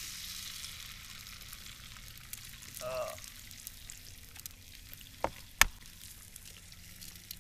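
Eggs frying in bacon grease in a cast iron skillet: a steady sizzle, with two sharp knocks a little after five seconds in, the second the loudest.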